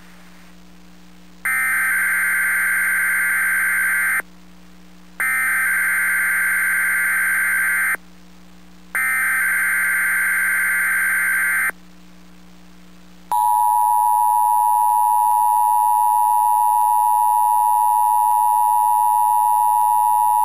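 Emergency Alert System test tones: three bursts of buzzing digital data tone (the SAME header), each nearly three seconds long with about a second between them. About 13 seconds in, the steady two-tone EAS attention signal starts and holds.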